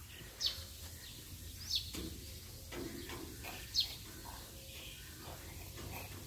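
A bird giving short, sharply falling chirps, three times with a second or two between them, over a faint low steady hum.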